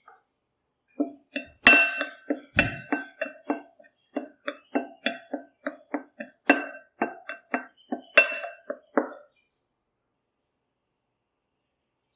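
A metal spoon repeatedly clinking against a metal bowl, about three ringing strokes a second, typical of mixing food in the bowl. A few strokes are louder, and the clinking stops about nine seconds in.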